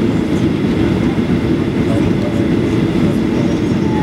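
Steady cabin noise inside a Boeing 737-800 on approach: a loud, even rumble of its CFM56 turbofan engines and the airflow over the wing with its flaps extended, heard from a window seat over the wing.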